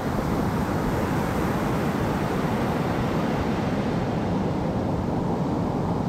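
Steady low rush of sea and wind, even throughout with no distinct splashes or calls.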